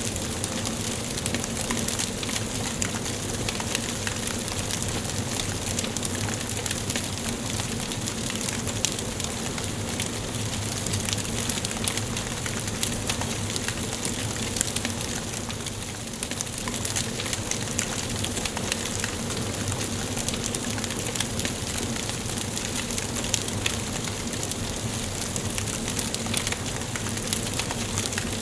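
Wood fire burning in a fireplace, crackling steadily with many small pops over a constant hiss.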